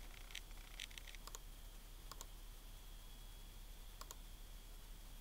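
Faint clicks of a Macintosh PowerBook 5300cs trackpad button: a cluster early on, then quick double-clicks about two and four seconds in as Finder folders are opened. A faint steady high whine runs underneath.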